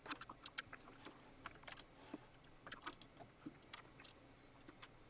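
Faint, irregular light clicks and taps, several a second, of a screwdriver and small screws being worked on the headphone section of a Digidesign 003 console.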